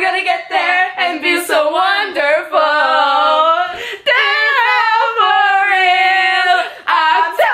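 Teenage girls' voices singing loudly without accompaniment, with long held notes through the middle of the stretch.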